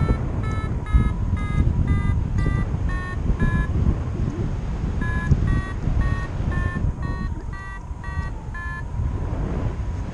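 Paragliding variometer beeping, short pitched beeps at about three a second that shift up and down in pitch, the vario's climb signal in rising air. The beeping breaks off for about a second and a half a little before halfway, resumes, and stops near the end, over steady wind rushing across the microphone.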